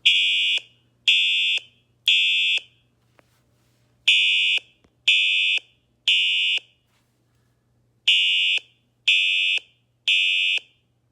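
Older Siemens fire alarm horn sound played through a tablet's speaker, sounding the temporal-3 evacuation pattern: three half-second blasts about a second apart, a pause, then the pattern again, three times in all. The horn tone is buzzy and heavily modulated, very broadband and very loud.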